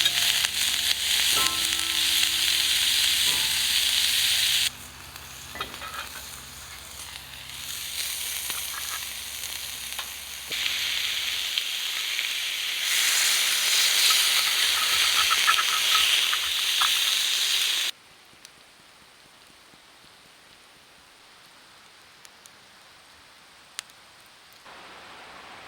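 Food sizzling and frying in a hot pan, in separate takes. It is loud at first, quieter for several seconds, then loud again. About two-thirds of the way through it cuts off suddenly, leaving only a faint hiss.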